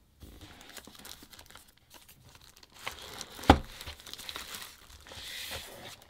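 Clear plastic bag around a mechanical keyboard crinkling as the keyboard is lifted out of its box and handled, with a sharp knock about three and a half seconds in.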